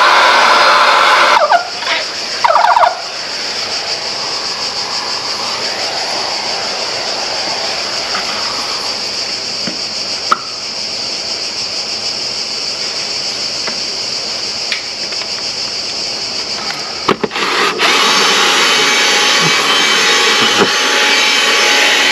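Vacuum-type cleaning machine running loudly. About a second and a half in it drops to a quieter running sound, with a few short sharp sounds soon after, and it is loud again for the last few seconds.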